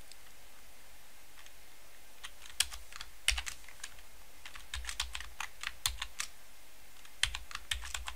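Computer keyboard typing: scattered keystrokes in short bursts with pauses between, starting about two and a half seconds in.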